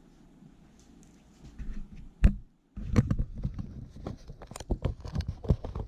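Homemade borax slime squished and worked by hand, making wet clicks and pops: one sharp pop a little over two seconds in, then a dense run of pops from about three seconds on.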